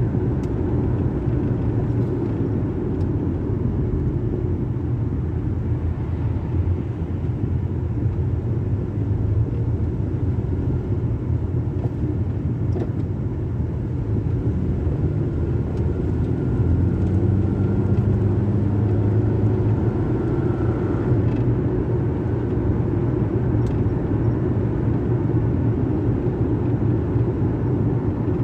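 Car engine and road noise heard from inside the cabin while driving: a steady low rumble, with the engine note rising for a few seconds about two-thirds of the way through as the car picks up speed.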